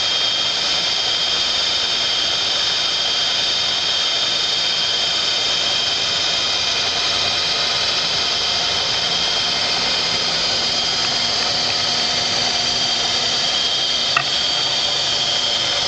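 Milltronics Partner CNC knee mill running, a steady high whine made of several held tones over a machine hiss. A brief click about 14 seconds in.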